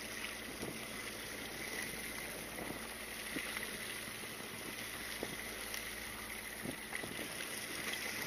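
Steady background noise aboard a fishing boat at sea: an even rush of wind and water with a thin, steady high whine and a few scattered faint ticks.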